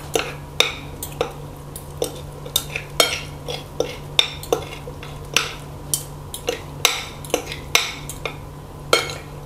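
Metal fork and spoon clinking and scraping against a plate, about twenty irregular sharp clinks, as rice noodles are mixed and dipping sauce is spooned over them.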